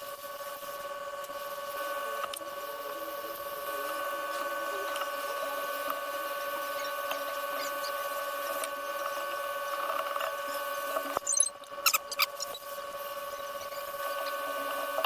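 A small electric machine humming steadily on one unchanging pitch, with a few sharp clicks about eleven to twelve seconds in.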